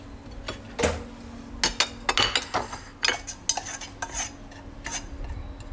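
Irregular clicks and clinks of dishes and utensils being handled on a countertop, over a faint steady hum.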